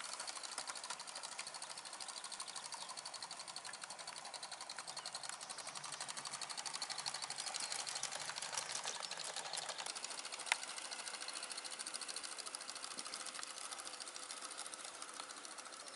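Gauge 1 model train running along the garden track: a rapid, even ticking clatter that grows a little louder in the middle. One sharp click comes about ten and a half seconds in.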